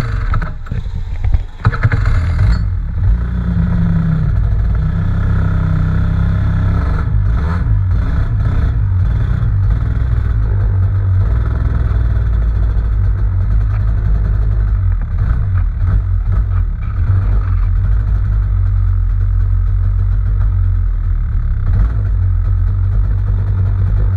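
Racing kart engine catching with a few irregular knocks and sputters, then settling after about two seconds into a steady run.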